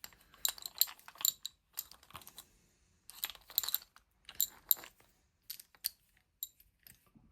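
Small metal watchmaker's hand tools clinking and clicking against each other as they are picked up and sorted, in several quick clusters of light metallic taps, thinning out near the end.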